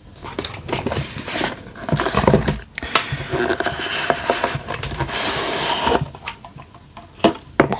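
Pocket-knife packaging being handled and opened by hand: scraping and rustling with many small knocks and clicks.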